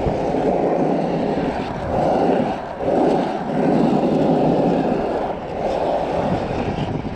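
Wind rushing over the camera's microphone together with wheels rolling on asphalt on a pump track, surging and easing every second or two as the rider pumps over the humps and berms.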